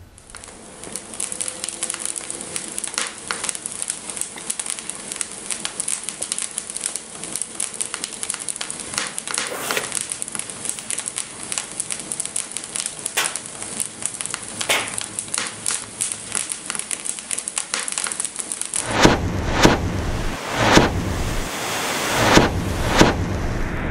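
Dense crackling like a burning fire, full of small sharp pops. Near the end it gives way to a louder, deeper rumble with several heavy thuds about a second apart.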